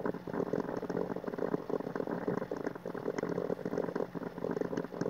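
Small round watercolour brush dabbing and stroking on watercolour paper: soft, irregular scratching and ticking, over a faint steady low hum.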